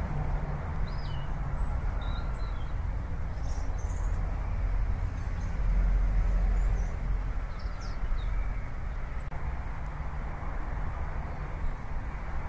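Street traffic noise on a busy city road: a steady rumble of passing cars, louder about halfway through, with a few faint bird chirps above it.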